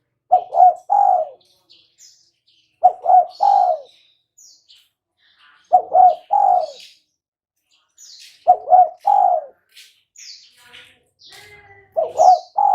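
Spotted dove (tekukur) cooing: a three-note phrase, two short notes and a longer third, repeated five times about every three seconds. Faint high chirps of small birds sound between the phrases.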